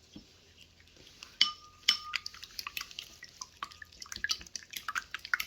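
Kitchen utensils tapping and clinking against a glass bowl: a run of light clicks, with a couple of clinks about one and a half to two seconds in that ring briefly.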